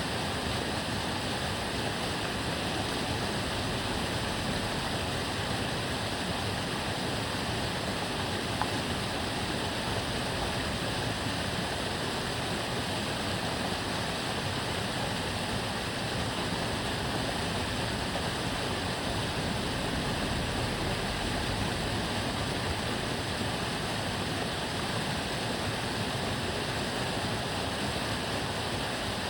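Steady rushing and babbling of water flowing along the Tamagawa Jōsui, an open aqueduct canal, unchanging throughout.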